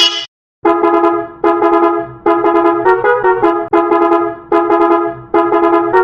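Bus-horn sound effect reworked with a trumpet-like brass tone, blaring a 'ta ta ta ta ta' tune. Short phrases of quick stepped notes repeat about once a second, after a brief gap just after the start.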